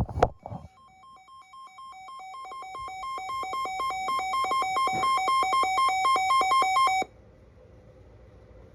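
Electronic alert alarm, likely from a weather-alert radio: rapid beeps alternating between two pitches, growing steadily louder for about six seconds, then cutting off sharply. A couple of loud clicks come just before the beeping starts.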